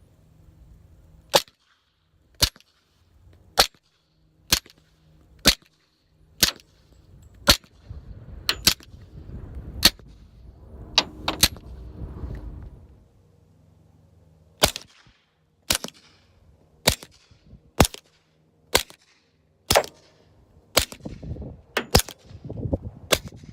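Suppressed pistol shots from a .45 ACP Glock 21 with a Rugged Obsidian 45 and a 9mm Glock 17 with a Rugged Obsidian 9, both firing subsonic reloads. The sharp reports come about one a second in two strings of roughly ten, split by a pause of a few seconds partway through.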